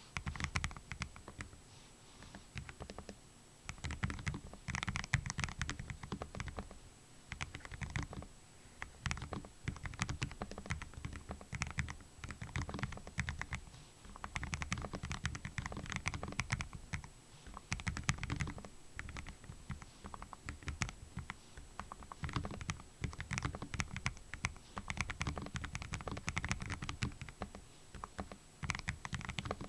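Typing on a Lofree Flow low-profile, gasket-mounted mechanical keyboard with Kailh Full POM switches: runs of rapid keystrokes broken by short pauses.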